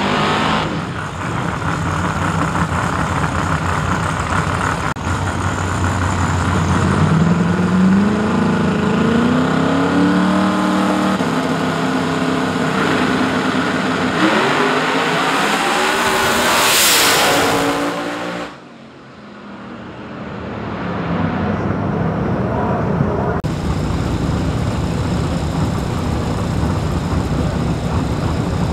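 Drag-racing cars' engines revving in rising sweeps at the starting line. They build to a loud run about 17 seconds in that cuts away sharply, and a steady loud engine sound comes back a few seconds later.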